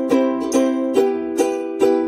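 Background music: a bright plucked-string tune with a new strum or pluck roughly every half second.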